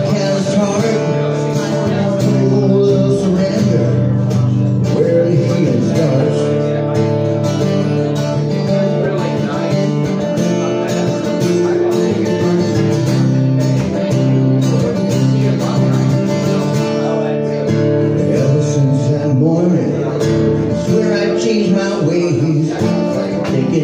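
Acoustic guitar strummed steadily in a live solo song, with a man singing along at times.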